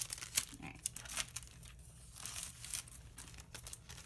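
Clear plastic cellophane sleeve crinkling in irregular bursts as it is handled and pulled open off its sticky seal, with a few sharper crackles near the start.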